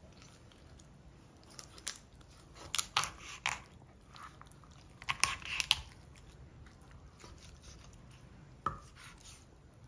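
Kitchen knife cutting through a raw chicken on a wooden board: crunches and snaps as the blade goes through bone and cartilage. They come in bunches about two, three and five seconds in, with a single crack near the end.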